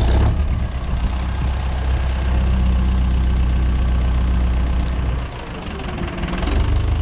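Tractor engine running steadily under load, dropping off briefly about five seconds in and then picking up again.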